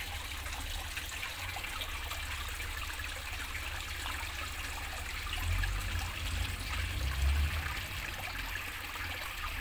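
Water trickling and splashing from a row of holes in a perforated pipe into a small planted pond, an even steady patter. Two brief low rumbles come in the second half.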